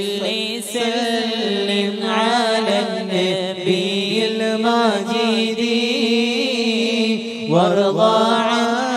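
Arabic mawlid verses in praise of Husayn chanted to a drawn-out, wavering melody, the voice holding and bending long notes.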